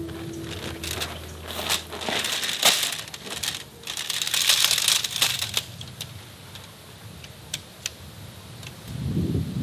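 Tent gear being unpacked by hand: crinkling and rustling of a plastic wrapper and fabric bag, loudest in the middle, then a few light clicks as tent poles are handled.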